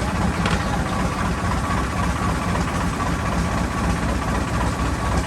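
A boat's engine running steadily with a low drone and a faint steady whine.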